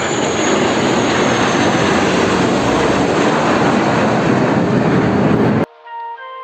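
Jet airliner engines running loud, a steady rush with a faint high whine that slowly falls in pitch. The sound cuts off abruptly near the end and soft music with held notes takes over.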